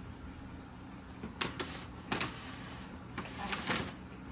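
Gift packaging being handled: a few short knocks and clicks, then a longer rustle of paper near the end as a wrapped item is lifted out.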